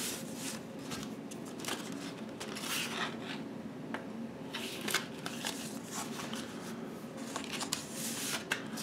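Cardboard mini-LP replica CD sleeve and paper inner sleeve being handled: irregular rustling, scraping and light ticks as the gatefold is worked open and a CD slides partly out of its sleeve.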